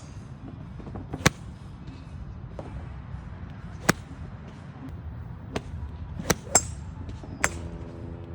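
Golf clubs cracking against balls at a driving range: six sharp strikes at irregular intervals, the loudest about a second and four seconds in. A steady hum comes in near the end.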